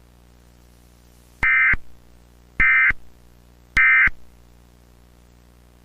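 Emergency Alert System end-of-message signal: three short, identical blasts of SAME digital data tone about a second apart, marking the end of the alert.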